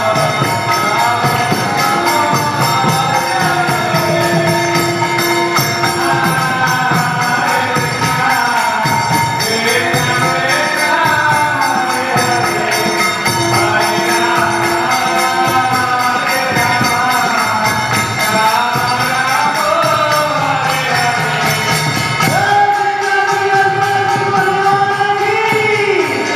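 Devotional chanting (kirtan) sung by a group, with hand cymbals jingling in a steady rhythm throughout.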